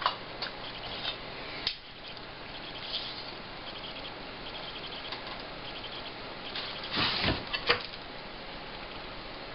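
A few light clicks and knocks of tools and parts being handled on a workbench over a steady hiss, with a short louder clatter about seven seconds in.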